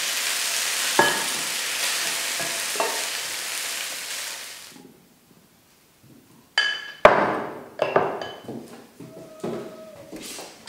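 Food sizzling in a pan with a steady hiss, with a couple of light clinks of utensils against a dish; the sizzle cuts off suddenly just before halfway. After a short quiet, dishes are set down on a tabletop: a run of sharp knocks and ringing clinks of crockery and metal.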